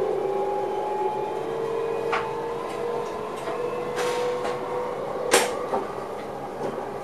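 Electric passenger train heard from inside the driver's cab: a steady motor whine whose pitch creeps up slightly, over running noise. Three sharp clicks come through, the loudest about five seconds in.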